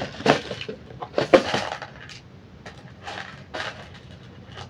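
Small plastic craft beads and their container being handled: a few irregular clicks, rattles and rustles, the loudest about a second in.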